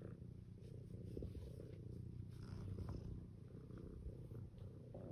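Tabby cat purring steadily while being stroked, with faint rustles of the hand moving over its fur.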